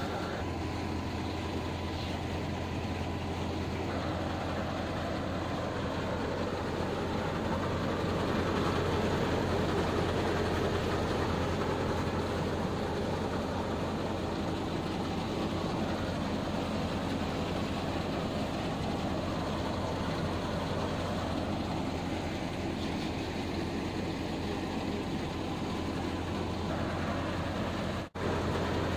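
Mung bean thresher running steadily under load, its drum, belts and blower fan making a constant low hum and rush as crop is fed in.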